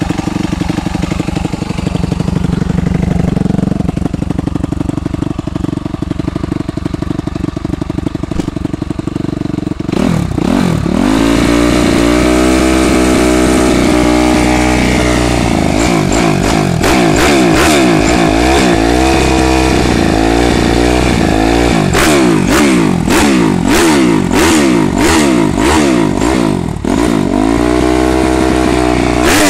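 Suzuki RM-Z250's single-cylinder four-stroke engine, with a Pro Circuit exhaust, idling steadily while warming up, then revved up at about ten seconds and held. After that it is blipped again and again in quick rises and falls, with sharp pops between the blips.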